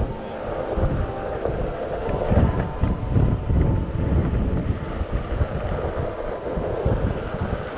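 Wind buffeting the microphone of a moving GoPro Fusion action camera on a riding OneWheel: an uneven, gusty low rumble.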